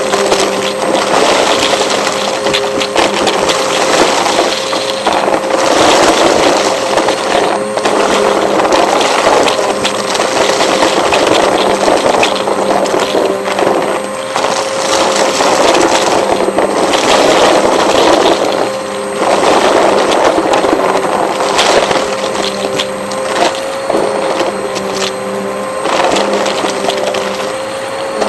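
Vacuum cleaner running with a steady motor whine, over dense crackling and clicking like debris being sucked up.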